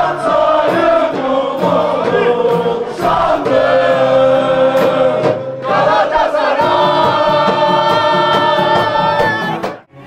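A group of people singing along loudly together over music, with long held notes; it cuts off suddenly near the end.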